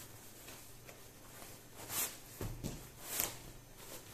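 Cotton fabric rustling and sliding as a sewn tube of bag fabric is pulled through itself to turn it right side out (the burrito method). There are a few brief soft swishes about two and three seconds in.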